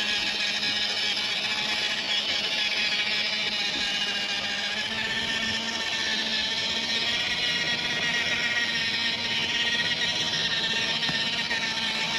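Small electric motor and gearbox of a WPL C64-1 RC crawler whining steadily as it drives, the pitch shifting slightly about halfway through.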